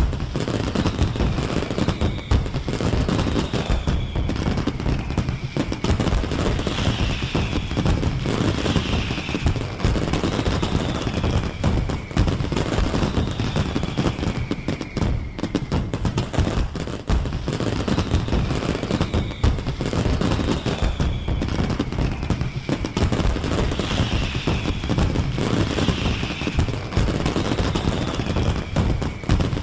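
Fireworks going off in a fast, continuous barrage of bangs and crackles, with high falling whistles recurring every couple of seconds.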